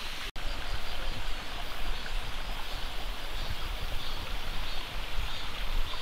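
Steady outdoor rushing noise with uneven low rumble from wind buffeting the microphone, after a split-second gap in the sound near the start.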